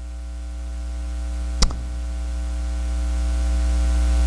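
Steady electrical mains hum, growing gradually louder, with a single sharp click about a second and a half in.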